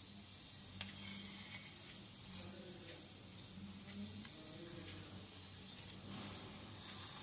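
Faint steady hiss of room tone, with a single sharp click about a second in from the steel ladle knocking the steel bowl as the thick layer of cream is lifted from the chilled milk.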